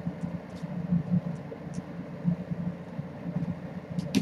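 A steady low hum, with faint scattered light taps as kittens play with a string toy on a wooden floor, and a sharper click near the end.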